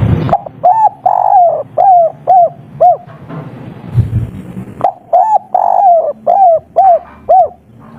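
Spotted dove cooing: two phrases, each a short lead note, a hooked note, one longer coo and then three short clipped notes, the three-note 'kuk 3' ending.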